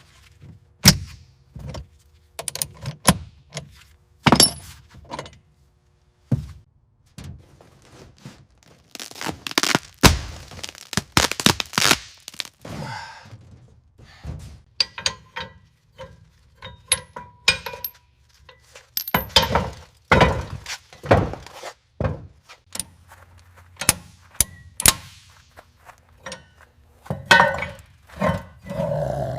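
Irregular knocks, thuds and clanks with stretches of scraping and rasping, the sound of a car body being stripped down to bare metal.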